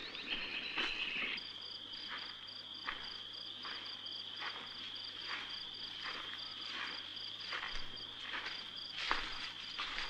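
Night chorus of crickets: a steady high trill with a faster pulsing chirp above it. Under it, faint regular footsteps through dry leaf litter, a little under one a second.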